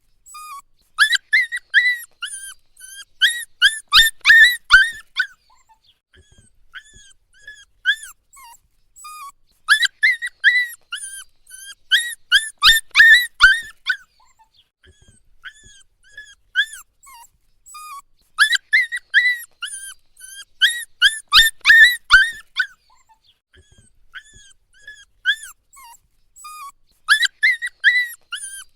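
Puppy whining and crying in runs of short, high-pitched cries, one quickly after another. The runs come in bouts every few seconds, with quieter, sparser whimpers between them.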